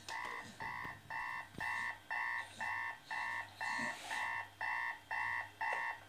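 Digital alarm clock beeping in a film soundtrack played back through speakers: a steady two-toned electronic beep about twice a second, stopping near the end as a hand slaps the clock.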